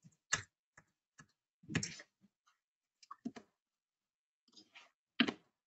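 Computer mouse clicks and keyboard keystrokes while a number is typed in, about eight short, irregular clicks, the loudest near the end.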